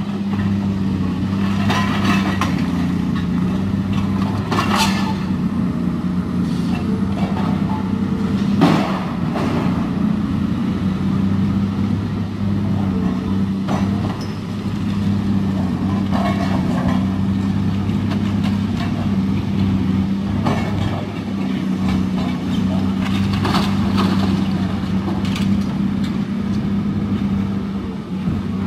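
High-reach demolition excavator's diesel engine running steadily, with sharp cracks and crashes every few seconds as its jaws break concrete and brickwork from the building and debris falls.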